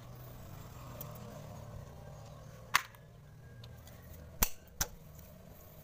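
Three sharp metal clinks as a long screwdriver knocks against the Honda Grand/Supra engine case and crankshaft end: one near the middle, then two close together near the end, over a low steady hum.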